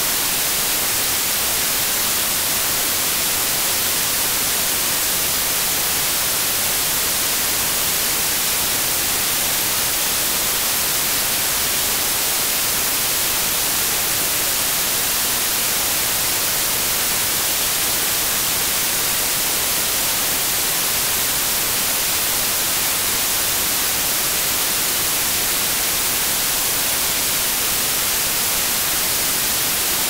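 Computer-generated white noise: a steady, even hiss with a flat power spectrum, unchanging throughout.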